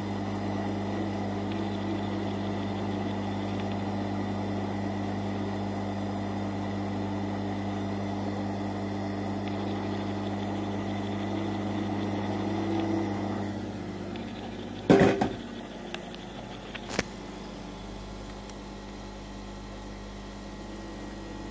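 Hot-air rework station blowing on a circuit board: a steady hum with rushing air that cuts off about 13 seconds in. Two sharp knocks follow, the first and louder about 15 seconds in, the second about two seconds later.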